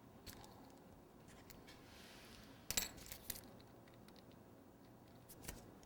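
Faint clicks and light taps of small cake-decorating tools being handled, such as a heart plunger cutter, with a short cluster of sharper clicks about three seconds in.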